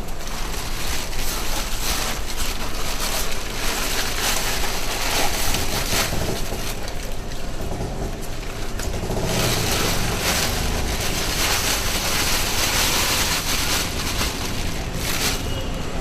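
Water rushing from a tap as hands scrub and rub something under it. The rush turns brighter and louder about nine seconds in.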